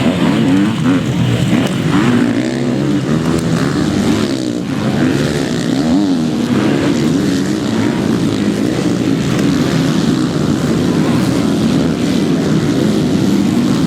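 Several MX2 motocross bikes racing, their engines revving up and down together in many overlapping rising and falling notes.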